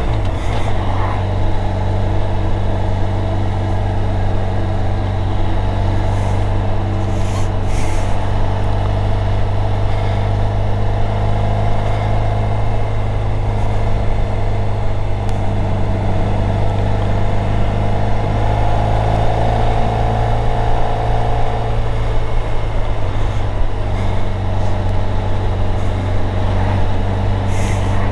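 Motorcycle engine running at a steady cruise under way, its note drifting slightly up and down, over a constant rush of wind noise.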